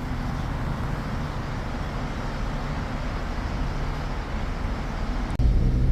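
Steady city road traffic noise: a low rumble of engines and tyres with no distinct events. Near the end it jumps abruptly to a louder, closer engine rumble.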